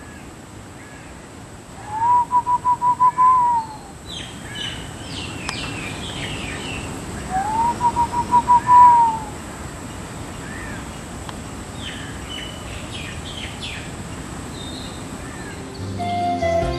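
Wild birds calling in tropical forest. Two loud phrases of quickly repeated notes rise and then fall, about two seconds and seven seconds in. Softer higher chirps and twitters run between them, over a faint steady high whine.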